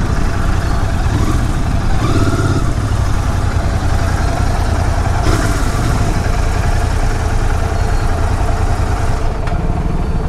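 Royal Enfield Continental GT 650's 648 cc parallel-twin engine running steadily on its stock exhaust, with the engines and noise of surrounding city traffic.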